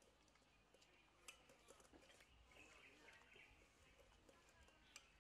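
Near silence, with a few faint scattered clicks and light knocks, the sharpest about a second in and again just before the end.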